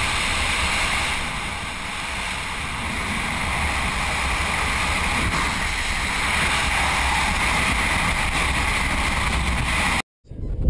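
Wind rushing over the microphone of a helmet-mounted camera in a BASE jump freefall from a cliff, a steady rush of air noise. It cuts off abruptly near the end.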